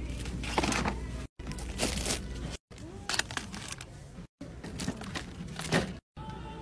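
Packaged groceries being set down in a red plastic shopping cart: a series of knocks and packaging crinkles, broken by four brief moments of silence.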